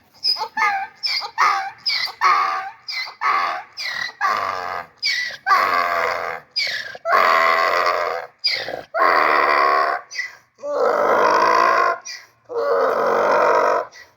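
Miniature donkey braying: a series of short wheezy calls that build into long, loud hee-haw calls about a second each, repeated in a steady rhythm.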